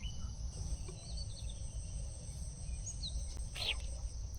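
Insects trill steadily in two high, even tones, with a few short bird chirps scattered through and a low rumble underneath.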